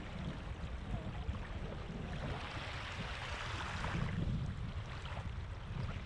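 Small waves of a calm sea washing up the sand at the waterline, one wash swelling about halfway through, over a low wind rumble on the microphone.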